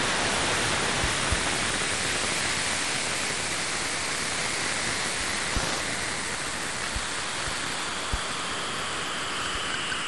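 Cassini's Radio and Plasma Wave Science (RPWS) instrument data from its dive through the gap between Saturn and the D ring, played back as sound. A steady hiss is broken by a handful of short sparse clicks, the sign of tiny dust particles striking the spacecraft, with no rise in the impact rate at the ring-plane crossing.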